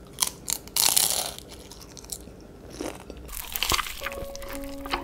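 Crisp fried food crunching loudly in close-up bites, with mouth chewing between them; the biggest crunches come about a second in and again just past three seconds. Background music comes in near the end.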